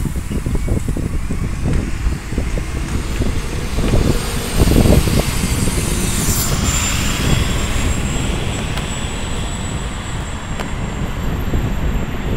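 MAZ-107 city bus pulling away from a stop and driving off, a steady engine and tyre rumble that is loudest about four to five seconds in.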